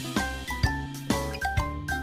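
Background music: a light, cheerful tune with bell-like pitched notes over a steady beat of about two drum hits a second.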